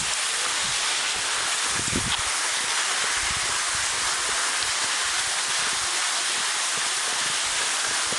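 Steady hiss of cross-country skis sliding over snow, with irregular low gusts of wind buffeting the microphone.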